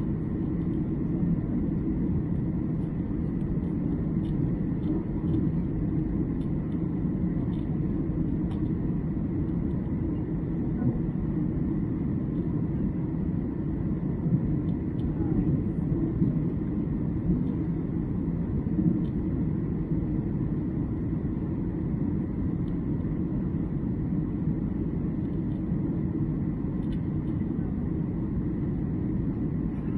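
Steady, even cabin rumble of a jet airliner in flight, with faint light ticks over it.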